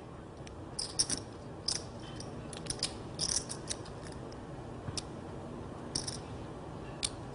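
Poker chips clicking together in scattered small clusters as a player fiddles with his chip stacks, over a low steady room hum.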